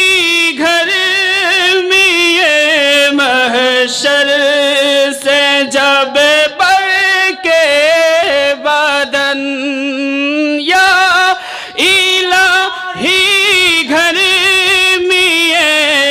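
A man singing a naat into a microphone, drawing out long wordless melismatic notes with a wavering vibrato. The voice thins out briefly about ten seconds in, then carries on.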